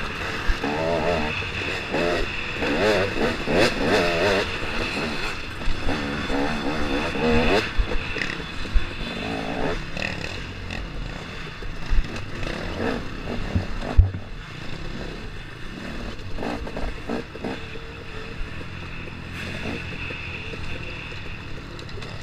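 KTM 250 XC-W two-stroke dirt bike engine revving up and down as the bike is ridden hard over a rough trail, easing to a steadier, quieter run after about eight seconds. A few sharp knocks stand out, the loudest about fourteen seconds in.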